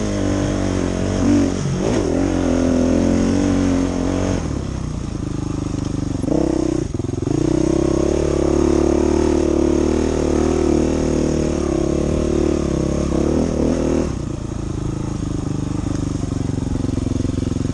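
Dirt bike engine, heard close up from the bike itself as it is ridden uphill. The throttle eases off about four seconds in, opens again near seven seconds, and drops back toward idle about fourteen seconds in as the bike comes to a stop.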